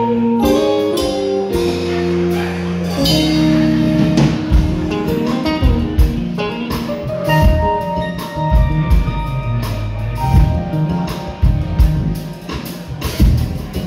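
A live band playing, with guitar lines over a bass line and a drum kit keeping the beat.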